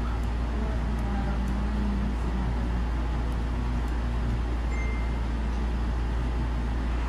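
A steady low rumble of background noise, even in level throughout.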